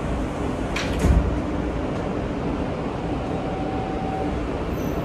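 R160A-1 subway car's sliding doors closing about a second in, a brief hiss ending in a heavy thud, over the steady hum of the car's ventilation and equipment. A faint steady tone sounds for about a second near the three-second mark.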